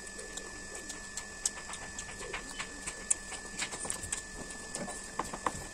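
Close-up eating sounds: chewing and lip-smacking while eating rice and fried fish by hand, heard as many small irregular wet clicks over a faint steady high whine.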